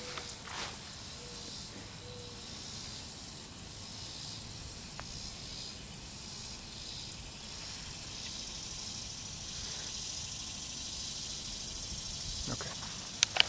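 Outdoor pond-side ambience: a steady background hiss with a faint, high-pitched insect trill throughout, and a couple of sharp clicks near the end.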